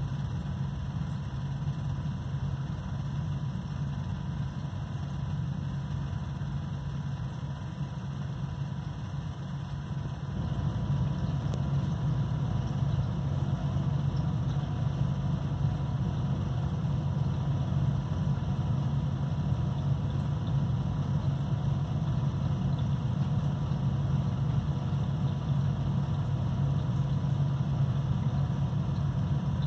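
Steady low mechanical hum, like a small motor running, with a faint steady high tone above it; it grows louder about ten seconds in and then holds steady.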